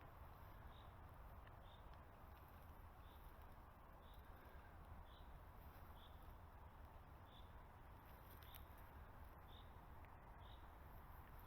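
Near silence: faint outdoor background with a short high chirp repeating about once a second.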